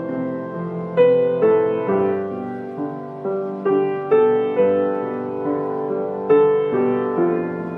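Background piano music: a slow, gentle tune of notes struck one after another, each fading as it rings.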